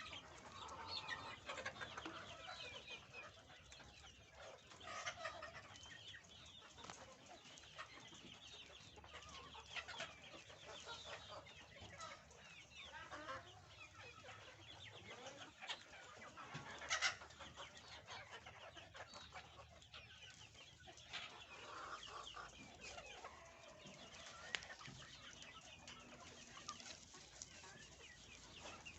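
A flock of Fayoumi chickens clucking and chirping softly, with scattered sharp taps; the loudest tap comes a little past halfway.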